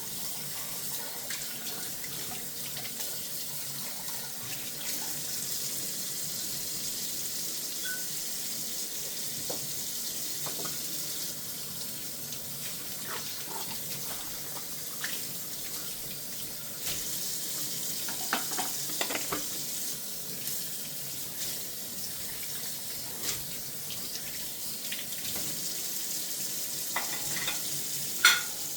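Kitchen tap running steadily into a sink during hand dishwashing, with scattered light clinks and knocks of dishware; a louder knock comes near the end.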